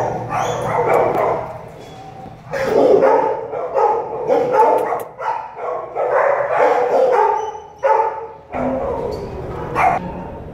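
Adult American Staffordshire Terrier barking in several loud bouts of rapid, pitched barks with short pauses between them.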